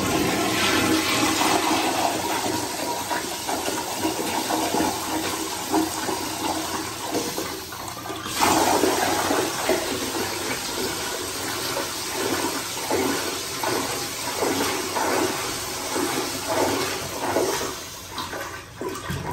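An American Standard Afwall wall-hung toilet flushing: a continuous rush and swirl of water through the bowl, surging again about eight seconds in and only tailing off near the end. The flush runs unusually long.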